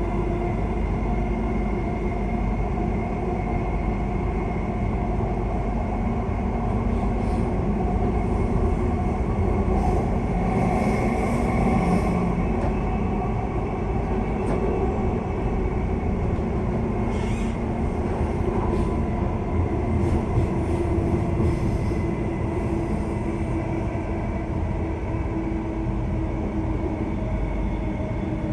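Electric suburban train running steadily: a continuous rumble with a faint, steady motor whine, and scattered light clicks from the wheels and track through the middle stretch.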